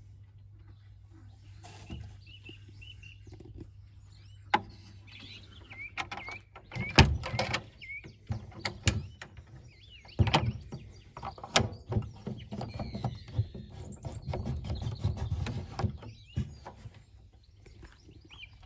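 Birds chirping, with a run of knocks and rustling handling noise close by, the loudest knock about seven seconds in.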